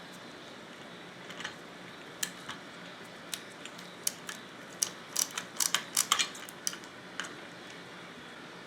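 Irregular sharp clicks and clacks of rack adjuster parts and the dishwasher rack being handled and fitted together, a few scattered at first, then a quick run of them past the middle.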